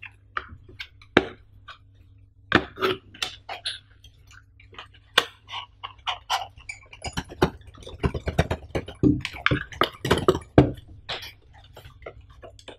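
Cardboard box being opened by hand: the flaps and the paper insert give scattered taps, clicks and rustles. About seven seconds in the handling turns into a busier run of crinkling and scraping for a few seconds as the packing inside is pulled at.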